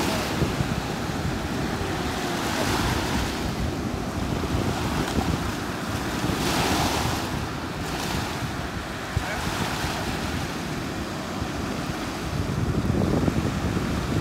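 Surf breaking and washing up over a pebble beach, the wash swelling every few seconds, with wind buffeting the microphone.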